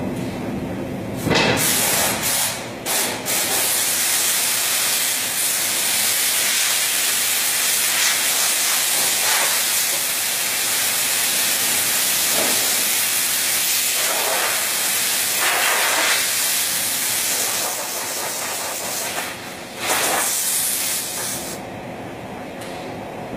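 Steady hum of a CNC router with a loud hiss laid over it. The hiss starts about a second in, breaks off briefly twice, and stops shortly before the end, leaving the hum.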